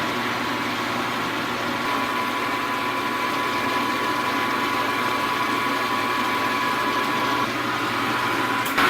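Milling machine spindle running at about 1200 RPM with a four-flute high-speed steel end mill taking a cut on a metal part: a steady motor whine and hum. There is a short knock near the end.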